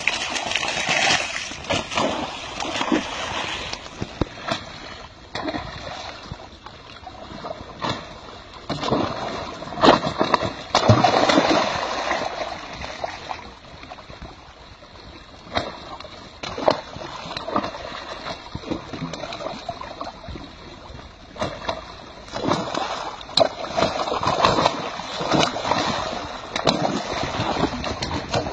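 Pond water churning and splashing at a pipe outlet, with many sharp splashes of fish leaping and falling back into the water. It swells louder about a third of the way in and again near the end.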